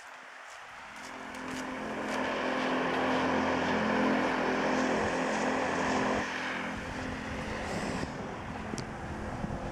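A motor vehicle's engine running with a steady low hum, growing louder over the first couple of seconds and dropping back about six seconds in.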